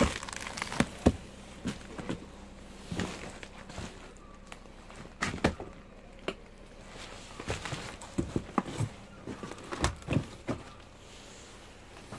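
A series of irregular knocks and clicks, about a dozen, unevenly spaced, over a low steady hum.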